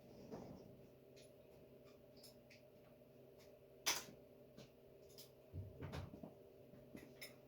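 Quiet handling of hand tools: a sharp click about four seconds in, a few faint ticks, and some soft knocks near the end.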